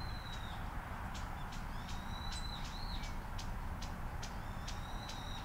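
Small birds calling: several short, clear whistled notes, a few bending down at their ends, and a run of sharp ticks, over a steady low hum.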